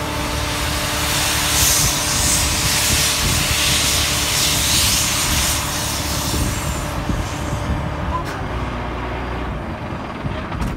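NSW 35 class steam locomotive 3526 hissing steam from its open cylinder drain cocks as it moves slowly, over a low rumble. The hiss is strongest in the first half and eases off after about six seconds.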